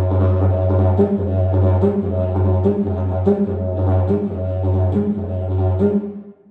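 Didgeridoo played with a steady low drone. From about a second in, a rhythmic pulse of brighter accents with short breaks in the drone comes in, and the playing stops just before the end.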